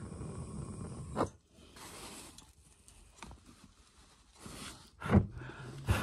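Handheld gas blowtorch hissing steadily as its flame heats a copper pipe joint for soldering, shut off sharply about a second in. After that, only faint handling clicks and rustles.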